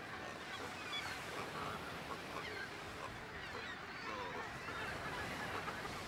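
Seabird colony: many birds calling at once, a dense steady chatter of short overlapping calls.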